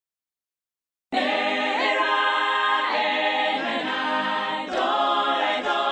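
Silence, then about a second in a choir of voices starts singing in harmony, unaccompanied, and carries on steadily.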